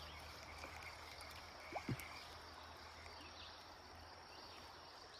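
Faint, steady hiss of flowing river water, with two brief faint sounds a little under two seconds in.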